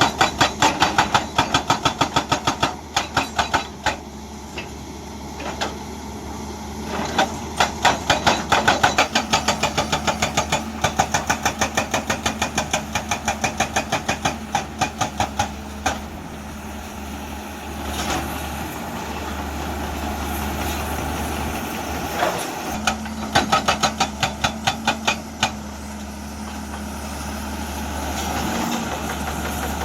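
Hydraulic breaker hammer on a Hyundai excavator pounding rock in three runs of rapid, even blows, several a second, with the diesel engine running steadily underneath and carrying on alone in the pauses between runs.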